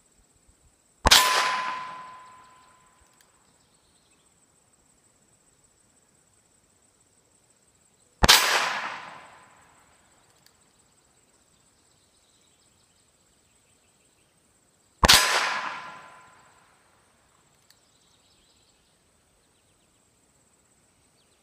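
Three shots from a Ruger Single-Ten .22 LR single-action revolver, about seven seconds apart. Each is a sharp crack followed by a ringing ping from a struck steel target, fading over a second or so.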